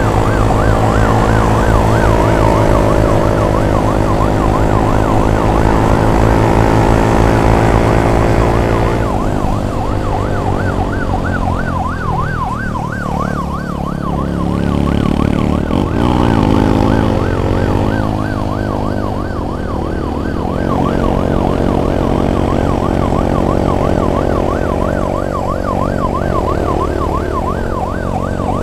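Emergency vehicle siren in a rapid, steady warble, over a vehicle engine running close by whose note rises briefly about halfway through.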